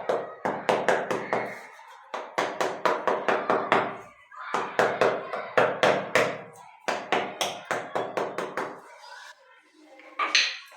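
Rapid tapping in four runs of about five taps a second, short pauses between: a floor drain being knocked down into fresh mortar to sit level with the tiles.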